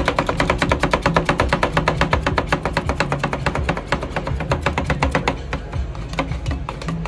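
Metal spatula rapidly chopping ice-cream mixture on a frozen cold-plate pan, about eight sharp taps a second, thinning out about five seconds in. Background music plays underneath.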